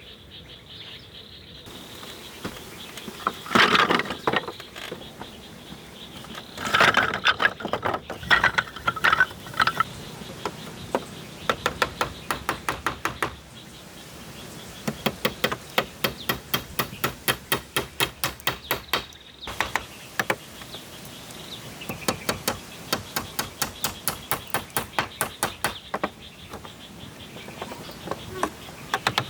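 Hand tool striking wood in fast, even runs of about four blows a second, stopping and starting several times, over a steady high insect drone.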